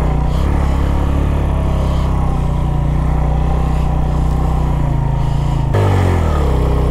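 Motorcycle engine running while the bike is ridden, a steady low drone. Near the end the engine note jumps and then falls away in pitch as the revs drop.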